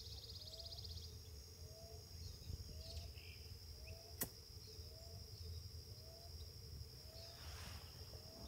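Faint outdoor ambience: a steady high-pitched insect chorus, with a soft short call repeating about once a second and a single sharp click about four seconds in.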